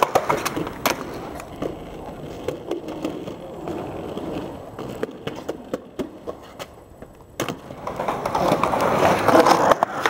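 Skateboard wheels rolling along a concrete sidewalk, with scattered sharp clacks; the rolling grows louder in the last couple of seconds.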